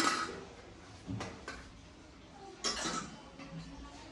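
Brass kitchen utensils knocking and clinking as they are handled and set down. The ring of a clank fades at the start, followed by a few lighter knocks about a second in and again near the three-second mark.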